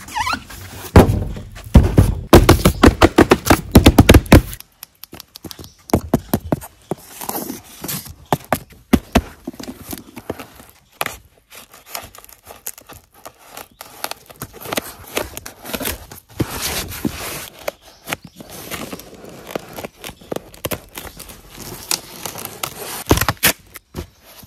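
Footsteps on a wooden plank deck. Then a stretch of scattered knocks, scrapes and snips as scissors cut packing tape and a polystyrene foam box is handled, with a sharper thunk near the end.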